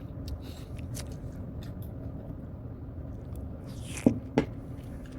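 Soft eating sounds of someone chewing cake at close range, with two sharp clicks about four seconds in, a third of a second apart.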